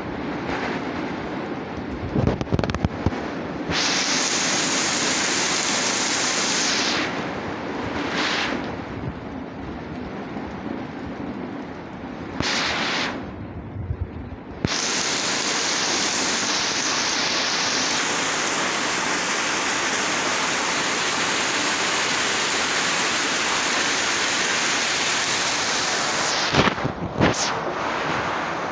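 Heavy rain falling on corrugated metal roofing and a wet street, a steady dense hiss. A few sharp loud knocks come about two seconds in and again near the end.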